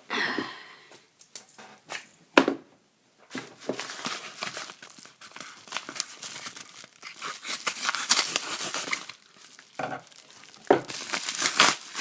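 Packaging of a new Zippo lighter being torn and opened by hand: irregular tearing, crinkling and rustling, with sharp snaps and clicks, the sharpest about two and a half seconds in.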